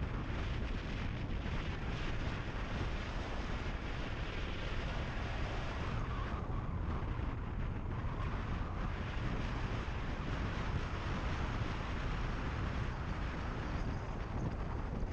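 Car driving steadily along a gravel road, heard from outside on the bonnet: wind rushing over the microphone over the low noise of the car and its tyres on gravel.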